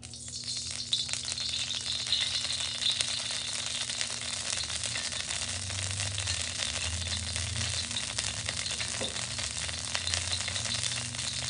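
Cooking oil sizzling in a hot steel wok on medium-high heat: the hiss starts suddenly as the oil goes in, then goes on as a steady crackling sizzle.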